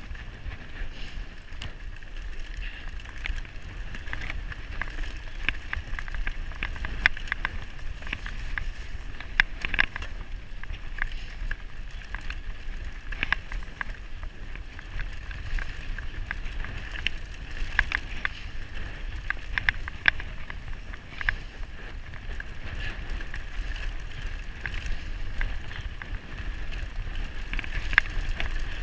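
Mountain bike rolling fast down a rough, stony dirt track: tyres crunching over gravel and rocks, with frequent irregular rattles and knocks from the bike, over a steady low rumble of wind on the microphone.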